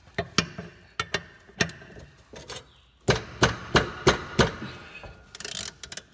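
Uneven metal knocks and clanks of a socket and extension being worked onto a bolt, with a quicker run of strong strikes from about halfway and a short hiss near the end.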